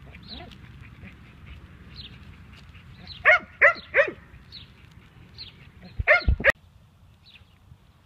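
A puppy gives three short, loud yaps in quick succession about three seconds in, then another short burst of yaps around six seconds, together with a low bump on the microphone that stops abruptly.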